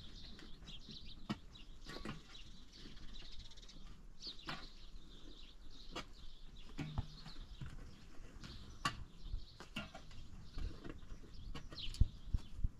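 Faint farmyard animal calls with many short high chirps throughout, and a few sharp knocks, the loudest near the end.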